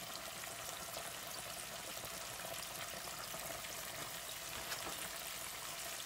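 Hot oil in an electric deep fryer sizzling and bubbling steadily as breaded fish fillets fry in it.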